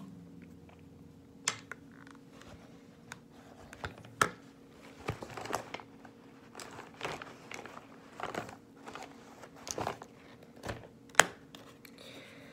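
Rummaging through an iridescent plastic makeup bag: the bag's material crinkling and rustling, with scattered clicks and knocks of makeup items being handled, and one sharp click near the end.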